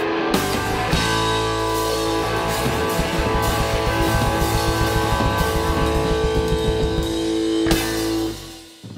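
Live rock band of electric guitars and drum kit playing a song's ending. A chord is held under fast drumming, with a final hard hit near the end, then the band's sound dies away.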